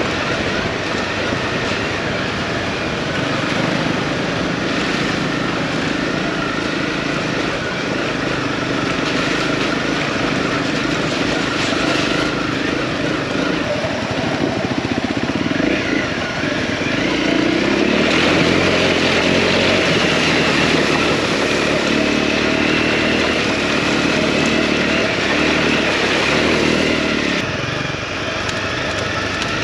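Honda CRF250L single-cylinder four-stroke motorcycle engine running under way on a rough gravel track, heard from on the bike. The engine note rises and falls with the throttle and is louder and higher for several seconds past the middle.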